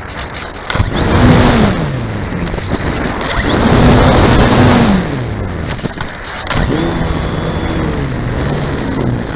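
Airflow rushing over an onboard camera on a flying RC plane, with another RC plane's propeller passing close twice, its buzz falling in pitch each time, about a second in and again around four seconds. From about six and a half seconds a steadier propeller drone runs under the wind.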